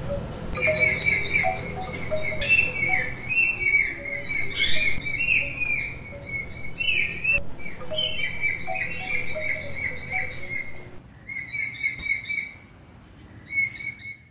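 Small birds chirping and twittering, many quick calls one after another over a low steady hum; the calls thin out near the end.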